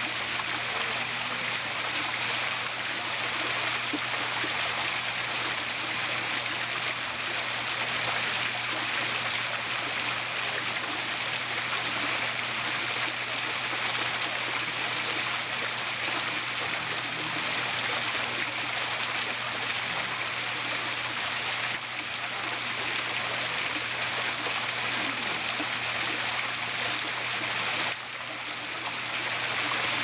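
Small waterfall splashing steadily down over rock ledges, a continuous rushing hiss of falling water.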